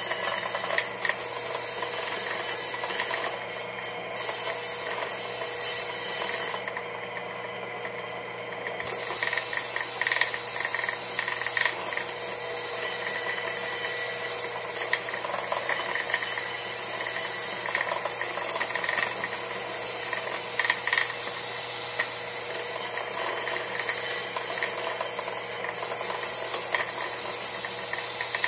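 An antique electric wire wheel running and brushing a metal wheel rim clean: a steady motor hum under a harsh, continuous scraping. The scraping lets up for about two seconds roughly a quarter of the way in, then resumes.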